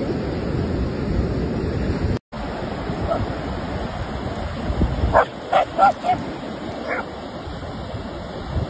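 Dogs barking, several short barks in quick succession starting about five seconds in and one more a second later, over the steady wash of surf and wind rumble on the microphone.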